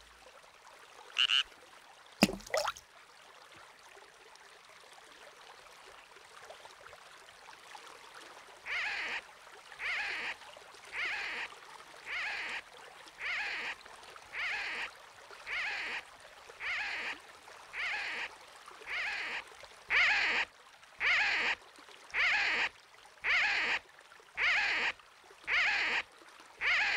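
Animation sound effect for men hauling a boat by ropes: a steady rhythm of swishing strokes, about one a second, starting around nine seconds in and getting louder after about twenty seconds. Before it, over a faint hiss, a short high chirp about a second in and a quick falling slide just after two seconds.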